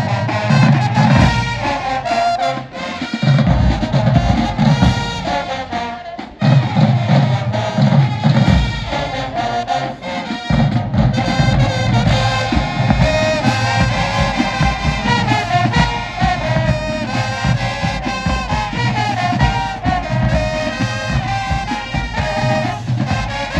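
High school marching band playing: brass horns over a driving drum beat.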